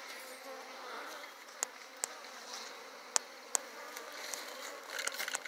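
Honeybees buzzing steadily around an open hive during an inspection, with a few sharp clicks scattered through and a quick run of them near the end.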